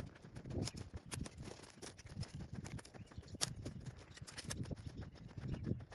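Footsteps on dry sandy ground with the crackle and snap of dry twigs and brush, as a person walks through thorny scrub: uneven soft thuds under many small sharp clicks.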